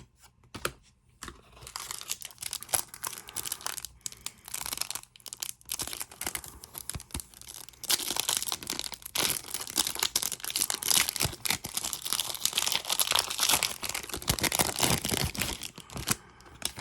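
Trading-card pack wrappers being torn open and crinkled in the hands, a dense crackle that grows louder and busier about halfway through.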